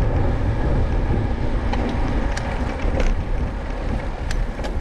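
Wind buffeting the microphone of a handlebar camera on a road bike being ridden, a steady low rumble of noise. A few sharp clicks sound about halfway through and again near the end.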